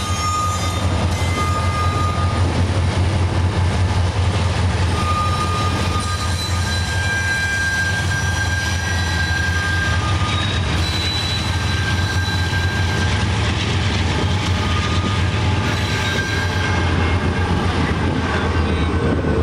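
Train rolling past with steel wheels squealing on the rails: high squeal tones come and go over a steady low rumble.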